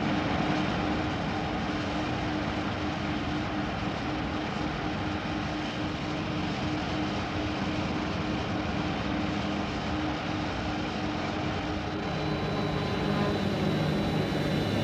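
Steady vehicle engine drone: an even roar with a constant low hum, starting abruptly. Faint music comes in over the last few seconds.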